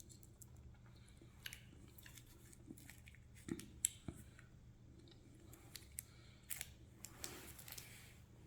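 Faint clicks and crinkles of a plastic jelly-straw tube being handled and opened, with mouth sounds of eating the jelly.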